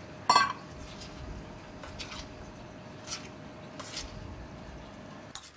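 A metal spoon clinks once against a stainless steel mixing bowl, ringing briefly, followed by a few faint clicks and wet squelches as raw pork slices are worked into a thick chili-paste marinade.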